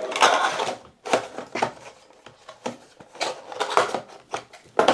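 Hands handling the CPU's retail packaging: a rustle in the first second, then a string of irregular light clicks and taps.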